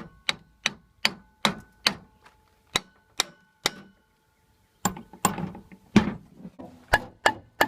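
A series of light hammer taps on the housing of a Myers QD50s jet pump, knocking it loose after its bolts are removed. The taps come in two runs of about two or three per second, with a pause of about a second in between.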